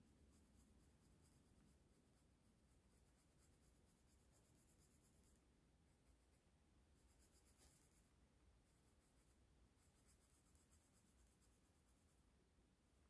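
Drawing strokes scratching on a drawing surface while sketching: runs of quick, light, scratchy strokes, broken by two short pauses.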